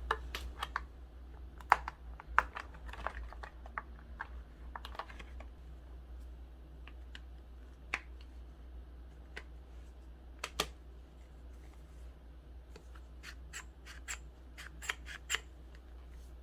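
Hands handling a smartphone and its plastic accessories: scattered sharp clicks and taps with light scraping, coming in small clusters.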